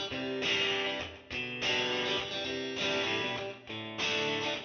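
Background music: a guitar playing plucked chords, struck about once a second.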